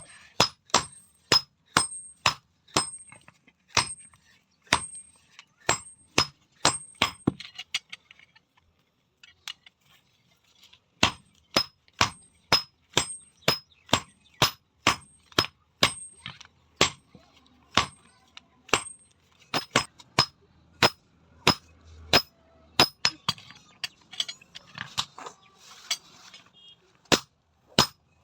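Blacksmith's hand hammer striking steel on an anvil, a steady run of ringing blows about two a second, with a pause of about three seconds about a third of the way in.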